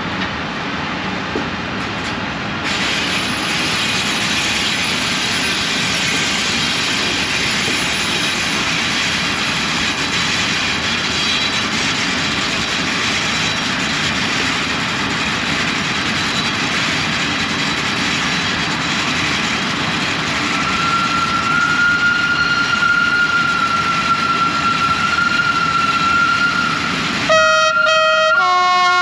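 A long line of coupled Swiss Re 4/4 electric locomotives rolling past, a loud steady rush and rumble of wheels on rail. About two-thirds of the way through, a steady high tone sounds over the rolling noise, and near the end the rolling noise gives way to a few clean held tones that change pitch in steps.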